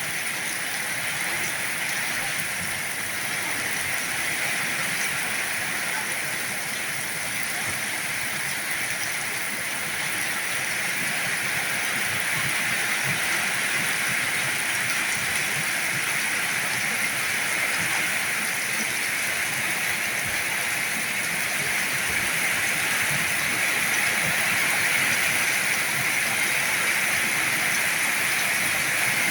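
Heavy rain falling steadily, a dense even hiss that grows slightly louder toward the end.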